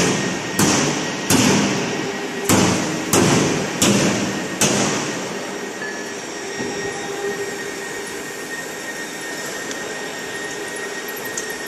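A hammer striking steel with a run of sharp, ringing blows, about one and a half a second, that stop about five seconds in. After that comes a steady machinery hum with faint high whining tones.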